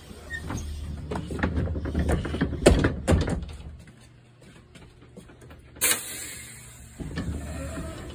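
A 2019 Thomas Built C2 school bus idling with a low steady hum, under a run of knocks and rattles that are loudest about three seconds in. The hum drops away for a few seconds, and a short sharp hiss comes near the six-second mark.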